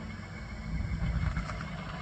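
2019 Camaro SS's 6.2-litre V8 exhaust running low and steady, with a louder stretch of crackling and popping about a second in.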